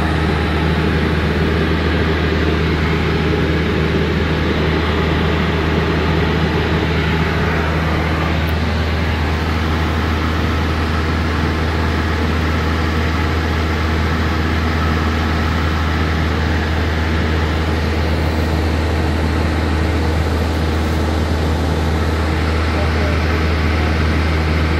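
Steady drone of a Cessna 172N's four-cylinder Lycoming engine and propeller in flight, heard inside the cabin.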